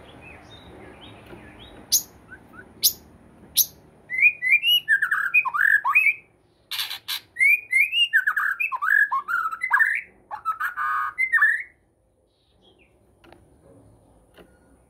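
White-rumped shama (murai batu) calling. Three sharp clicks, then about eight seconds of quick swooping whistled notes mixed with harsh rasping squawks, which cut off suddenly.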